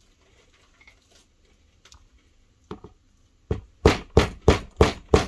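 A small hammer tapping the end of a pick to drive the small gas tube pin into an AR-15 gas block. Two light taps come about halfway through, then sharp, even strikes about three a second over the last two seconds.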